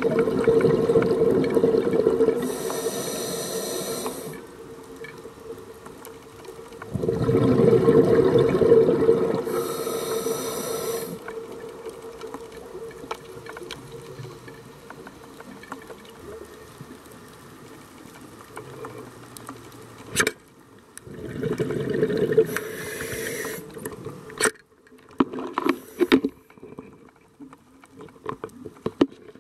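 Scuba regulator breathing underwater: long bubbling exhalations with a hiss, repeating every several seconds, against a steady underwater wash. A few sharp clicks come in the later part.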